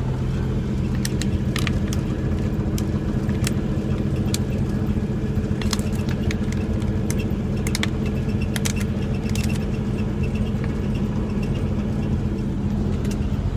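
Semi-truck engine and road noise as a steady drone inside the cab while driving, with scattered light clicks and rattles.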